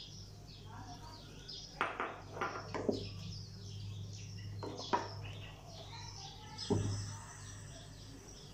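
Wooden spatula knocking and scraping against the side of an aluminium pot as milk kheer is stirred: a few sharp knocks about two to three seconds in, and again near five and near seven seconds. Small birds chirp throughout, over a low steady hum.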